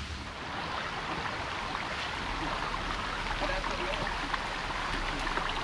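Steady rush of a flowing stream, growing slightly louder after about a second.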